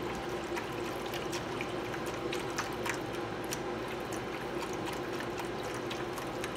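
Chicken stock pouring from a carton in a steady trickle into a metal roasting pan that already holds pan juices, with scattered small splashing ticks.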